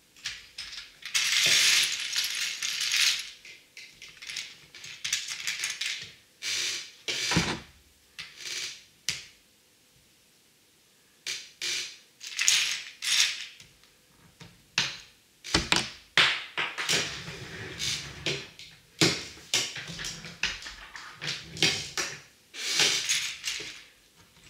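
Small plastic LEGO pieces clattering and clicking as hands rummage through a plastic parts tray and handle bricks on a baseplate, in irregular bursts, with a short pause about ten seconds in.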